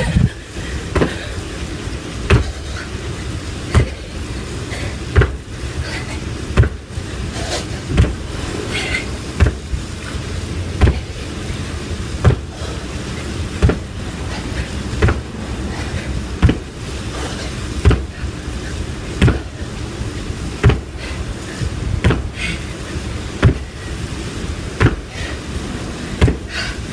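Feet landing on a tiled floor in a steady run of squat jumps, about one landing every second and a half, over a steady low rumble.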